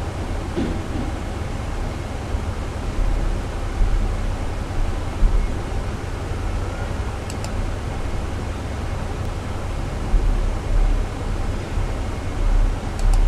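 Steady low rumbling noise with a hiss over it, and a few faint clicks about seven seconds in and near the end.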